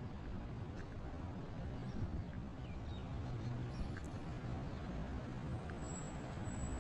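Road traffic on a busy multi-lane city street: cars driving past, with a low engine rumble that builds slightly toward the end.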